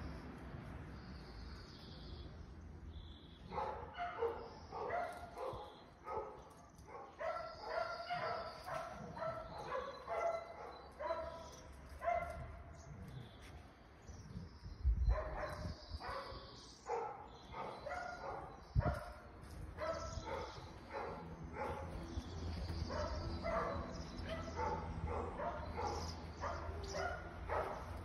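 A dog vocalising in rapid runs of short pitched calls, starting a few seconds in and going on with short pauses. There is a low thump about halfway through.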